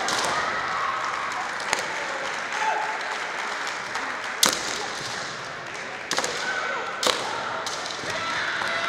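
Kendo fighters' drawn-out kiai shouts, with sharp cracks of bamboo shinai and stamping feet on a wooden floor; the loudest crack comes about four and a half seconds in.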